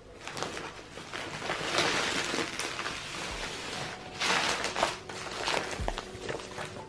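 Bubble-wrap packaging crinkling and crackling as it is handled and pulled open from around a stack of paperback books, with two louder bursts of crinkling.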